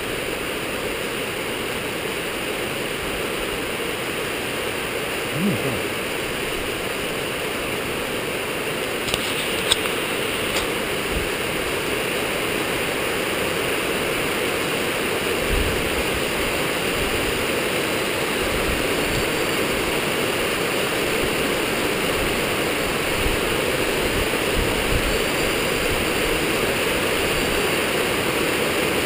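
Steady rushing noise of rain and wind, growing a little louder. In the second half a faint high whine comes from the electric motor and rotor of a small Skyartec Wasp V3 RC helicopter.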